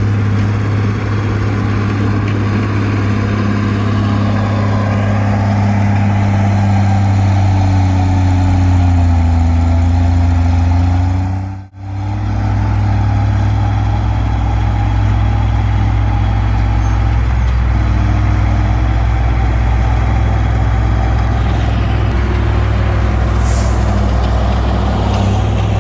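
Komatsu D20P bulldozer's diesel engine running steadily, with a slight dip and recovery in pitch before a brief sharp dropout about twelve seconds in.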